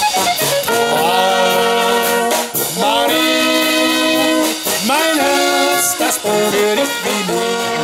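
Brass band music: horns play long held notes, with a few sliding rises and falls in pitch about five seconds in.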